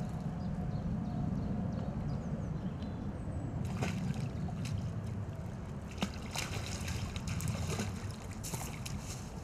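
A hooked carp splashing repeatedly at the surface close to the bank as it is played on a float rod, the splashes starting about four seconds in. A steady low rumble of wind on the microphone runs underneath.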